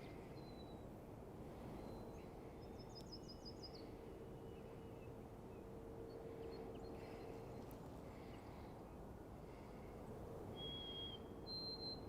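Faint breezy outdoor ambience with a low steady hum, and small birds calling: a quick run of high notes about three seconds in, and clear whistled notes near the end.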